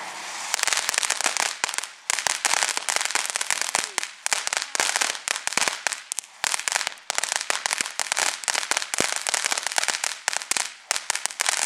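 Ground fountain firework: a steady hissing spray gives way about half a second in to a dense, rapid crackling of popping sparks, its crackle stage, which keeps going with short lulls.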